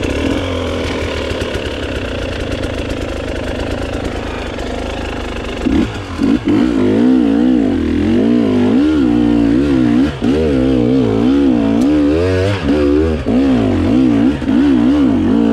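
KTM 300 XC-W dirt bike's two-stroke single-cylinder engine running at a steady low speed, then from about six seconds in revving up and down over and over as the throttle is worked.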